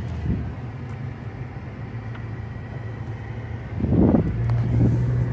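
Car engine and road noise heard from inside a moving vehicle: a steady low hum, with a brief louder rumble about four seconds in.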